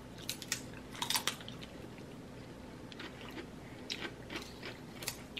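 Two people biting into and chewing crisp chips: sharp crunches about half a second and a second in, then lighter, scattered crunching as they chew.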